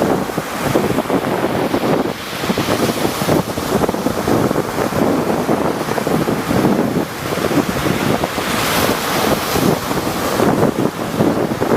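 Rough sea surf: waves breaking and washing in, the noise swelling and easing in several surges.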